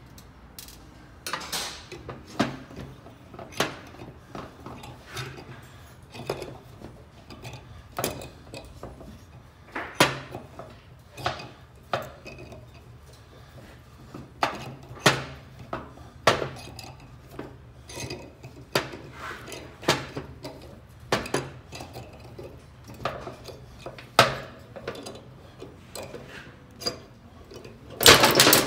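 Irregular small metallic clicks and clinks of steel tools and parts as the valve retaining clips are worked off a BMW R1200GS cylinder head's valve stems with a valve spring compressor, with a louder clatter near the end.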